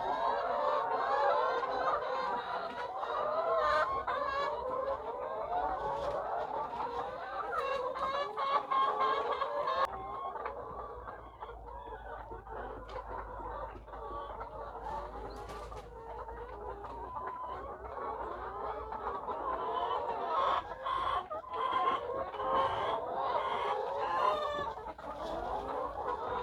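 A flock of layer hens clucking and calling together, many overlapping voices at once. The chatter is densest and loudest for the first ten seconds, then thins somewhat.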